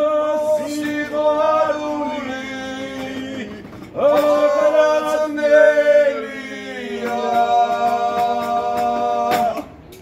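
A man singing unaccompanied in long held notes: two phrases, with a short break about four seconds in, and the singing stops just before the end.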